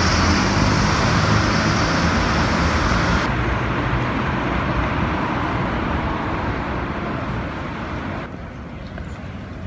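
Road traffic on a wet city street: a steady wash of car and tyre noise. It eases off abruptly about a third of the way in and again near the end.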